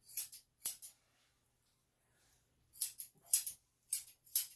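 Grooming scissors snipping dog fur around the face: two quick cuts, a pause of about two seconds, then four more cuts in steady succession, each a crisp metallic snap.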